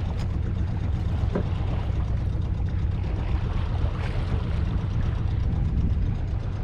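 Sailing yacht's engine running steadily under way: a continuous low rumble with a hiss above it.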